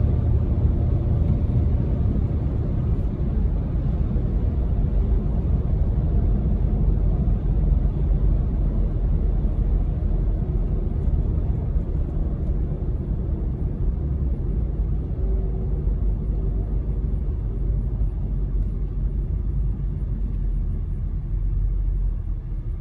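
2004 BMW 325Ci on the move, its 2.5-litre straight-six and the road noise making a steady low rumble.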